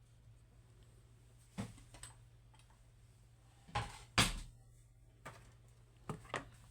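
Short knocks and clatters of a metal padlock and tools being handled and set down on a hard surface, loudest in a quick double knock a little past the middle, over a faint steady hum.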